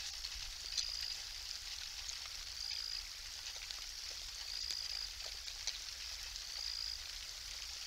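Night outdoor ambience: a steady high hiss with scattered faint ticks, and a short, high, steady tone that repeats about every two seconds.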